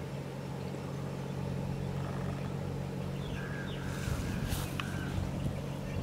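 Steady low motor hum, with a few faint short bird chirps in the second half.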